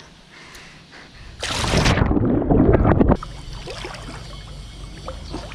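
Loud splash and rush of water as a person enters a swimming pool, starting about a second and a half in and cutting off abruptly under two seconds later. It is followed by a quieter, steady churning hiss of water around a half-submerged action camera.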